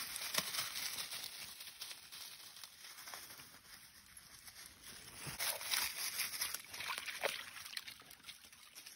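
Coonhound puppies moving about and playing in dry leaf litter: irregular rustling and crunching of leaves, quieter a few seconds in and then picking up again.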